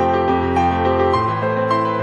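Soft instrumental background music with sustained notes, shifting to a new chord about a second in.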